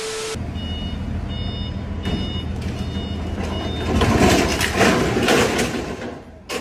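A short burst of TV-static noise and tone, then a truck engine running and a scissor lift's motion alarm beeping about five times, evenly spaced. About four seconds in, a loud metal crash and clatter as the scissor lift topples off the tilted truck bed.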